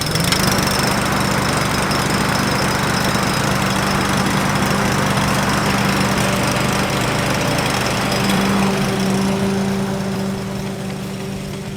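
Ride-on tractor lawn mower engine picking up speed at the start, then running steadily under way, growing quieter near the end.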